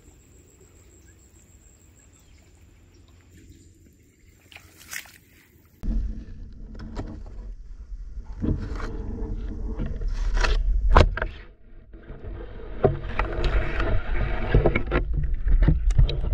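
Water sloshing and splashing close to the microphone, with knocks and bumps. It starts suddenly about six seconds in; before that there is only a faint steady high whine.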